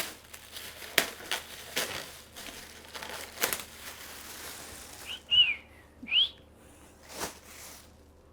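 Packaging being handled as a PC tower is unboxed: crinkling and rustling with several sharp clicks and knocks, then two short, high whistle-like squeaks about a second apart past the middle.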